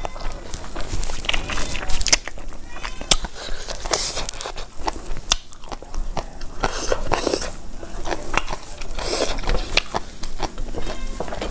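Close-miked eating: chewing with many sharp wet mouth clicks, along with light clicks of fingers gathering food on a steel plate.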